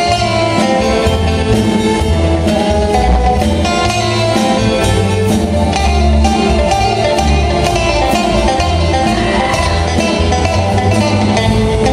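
Live band playing an instrumental passage: a Stratocaster-style electric guitar carries the melody over bass and a drum kit keeping a steady beat.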